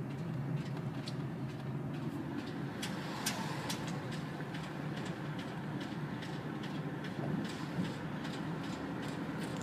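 2001 Buick Regal's 3800 V6 engine idling steadily with a ticking noise on top: sharp, irregular ticks several times a second, growing more frequent about two to three seconds in.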